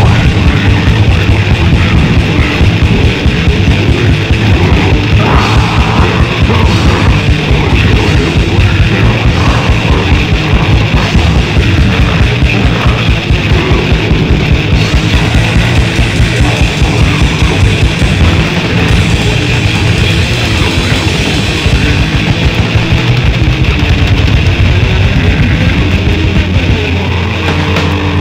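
Grindcore/death metal recording: heavily distorted guitars over very fast, steady drumming, played loud and without a break.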